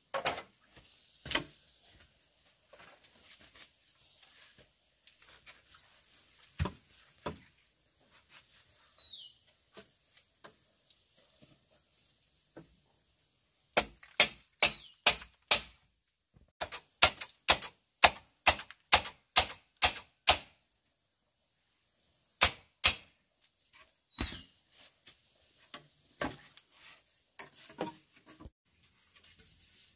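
A tool striking wood in sharp blows: a few scattered knocks, then two fast, even runs of strikes about two to three a second in the middle, and a final pair. Faint handling rustle fills the gaps.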